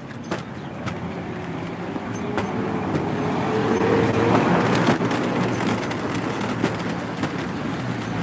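A motor vehicle passing close by: its engine note rises in pitch and grows louder to a peak about four seconds in, then fades. Beneath it is the steady rolling rumble of the mushing rig's wheels on sidewalk concrete, with scattered sharp clicks.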